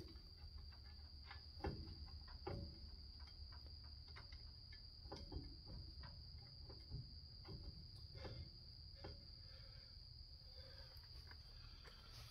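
Near silence: a steady faint high-pitched tone, with a scatter of faint light taps and clicks.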